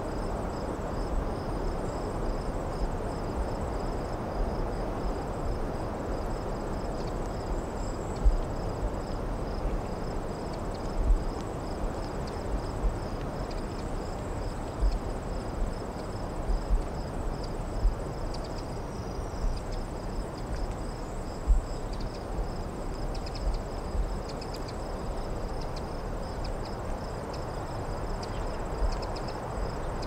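Crickets chirping in a steady pulsing rhythm, high in pitch, over a steady low hum of distant road traffic, with scattered short low thumps.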